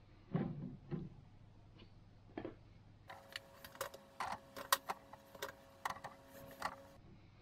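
Chestnuts being handled on a small wire grill over a charcoal brazier: a few separate knocks at first, then a busier run of irregular light clicks as nuts are set down on the metal mesh, with a faint steady hum beneath the clicks.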